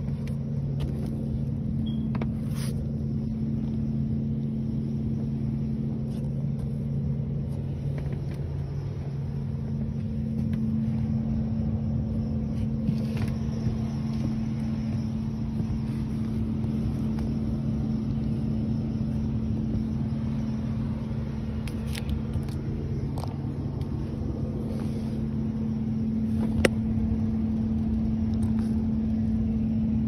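HVAC air handler running in the attic: a steady low hum with a rumble of moving air. There are a few short clicks and rustles from handling near the microphone.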